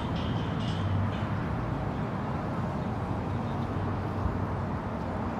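Steady low rumble of outdoor waterfront background noise with a faint hum, without distinct events.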